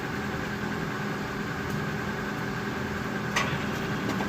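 A steady mechanical hum with a faint steady whine, and a single short click about three and a half seconds in.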